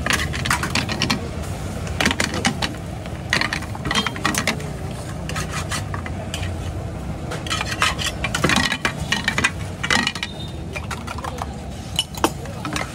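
Metal utensils clinking, tapping and scraping against steel pans and bowls as omelettes are cooked, in irregular bursts over a steady low rumble.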